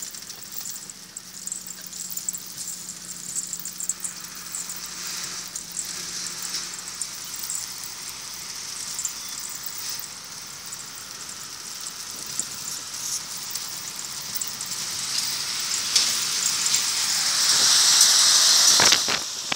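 Steady wind and road rush heard from a moving vehicle, a hiss that slowly builds and swells to its loudest as an oncoming truck passes close alongside near the end, then drops off abruptly.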